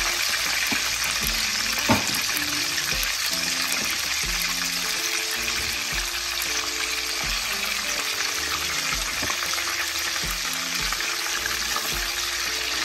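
Silver hake steaks frying in hot mustard oil in an aluminium wok, giving a steady, dense sizzle. One sharp click of the spatula against the pan about two seconds in.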